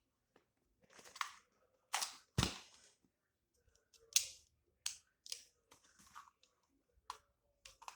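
Plastic clicks and clacks from a toy shell-ejecting Glock pistol being loaded and handled: about a dozen short, sharp clicks at uneven intervals, the loudest about two and a half seconds in.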